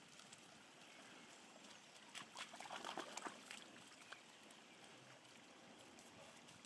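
Faint, steady trickle of a small shallow stream over stones, with a brief patch of light rustling and crackling about two to three seconds in.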